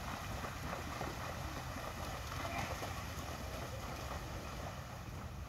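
Wind rumbling on the microphone, with faint splashing from a pair of horses and a carriage being driven through shallow water.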